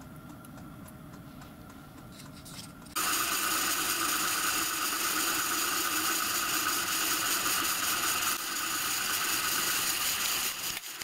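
A small drilling machine's spindle running while a drill bit cuts a small hole in a steel part. There is a faint steady tone at first, and about three seconds in a much louder steady whirring starts.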